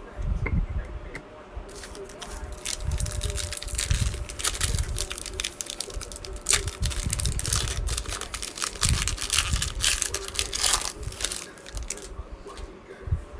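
A plastic trading card pack wrapper is torn open and crinkled, with dense, irregular crackling from about two seconds in until near the end.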